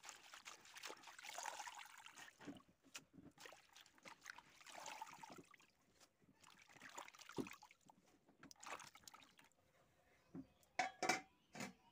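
Faint sloshing and trickling of water as a handful of leafy greens is swished and lifted by hand in a metal pot of rinse water, with a few soft knocks near the end.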